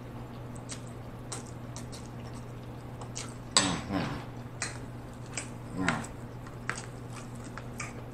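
Close-miked eating sounds from a mouthful of spaghetti: chewing and wet mouth smacks, with scattered small clicks from a fork and fingers against the serving tray. There are a couple of louder mouth sounds around the middle, over a steady low hum.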